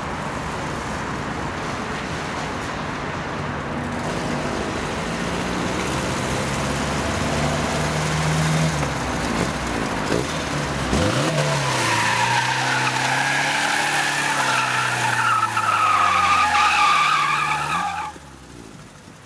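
Ford Sierra 2.0i's Pinto four-cylinder engine revving up and down as the car drifts, with tyres squealing from about halfway through. The sound cuts off suddenly near the end.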